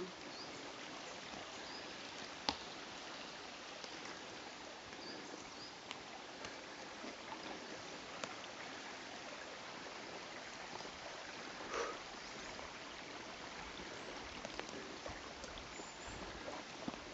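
Footsteps of people and a dog walking over a mossy forest floor, with scattered light clicks and a sharper snap about two and a half seconds in, over a steady outdoor hiss.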